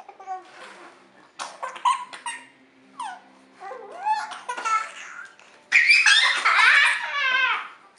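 Baby and young boy laughing in short bursts of giggles, the loudest and longest a belly laugh from about six seconds in.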